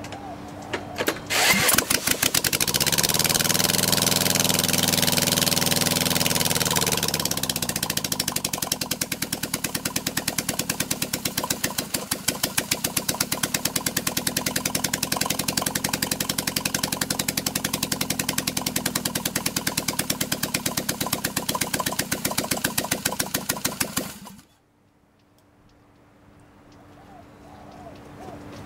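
VW inline-four engine on a test stand, cranked briefly with a large electric drill on the crankshaft pulley. It catches about a second and a half in. It revs up and down for a few seconds, then settles into a steady idle with even firing pulses, and shuts off abruptly near the end.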